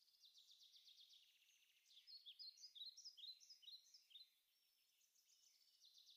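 Near silence with faint birdsong: small birds chirping and trilling, with a cluster of quick rising and falling chirps about two to four seconds in.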